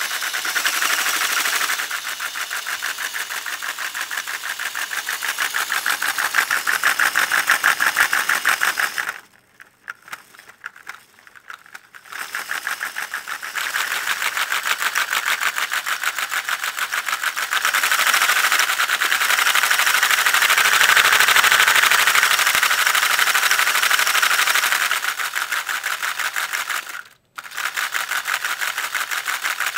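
Lego Technic V-twin model engine running, its plastic pistons and linkages making a fast, steady clattering rattle. The rattle nearly stops about nine seconds in, picks up again about three seconds later, and breaks off for a moment near the end.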